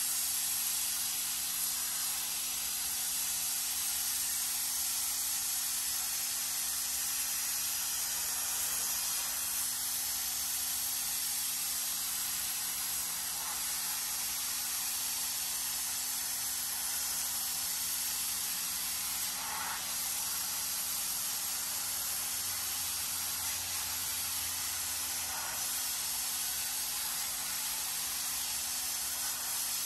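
Pressure washer spray hissing steadily as the jet is worked over car floor mats.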